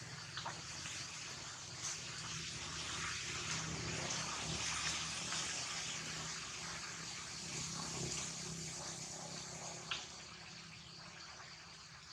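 A steady rushing noise like running water, swelling in the middle and easing off near the end, with a few faint clicks.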